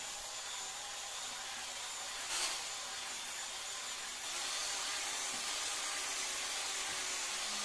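Parkside PAAP 12 C3 cordless polisher running at low speed, its foam pad spinning and rubbing over wet faux leather: a steady motor whir with a swishing hiss, a little louder from about four seconds in.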